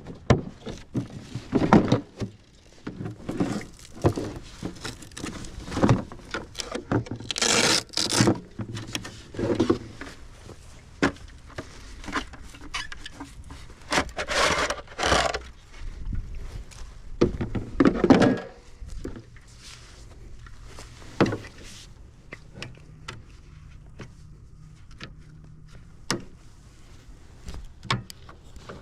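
Irregular wooden knocks and scraping, as of branches and wood being handled and dragged about, with no saw running; busier in the first two-thirds, then only a few scattered clicks.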